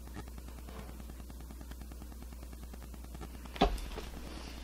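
Room tone with a steady low hum and faint noise. About three and a half seconds in there is one sudden short thump.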